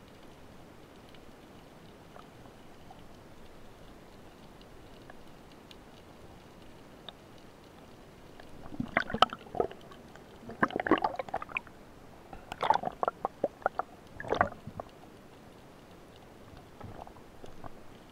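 Underwater water-and-air-bubble noise: a faint steady hiss, then several clusters of loud gurgling bursts in the middle, with a weaker one near the end.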